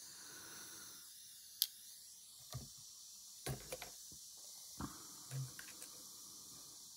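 Faint steady hiss of a lit butane soldering iron, with a few light clicks and knocks as tools are handled on the work board.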